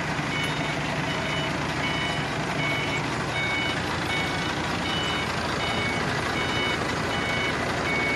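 Forklift's reversing alarm beeping over and over on a few fixed pitches, with its engine running underneath as it backs away from a container truck.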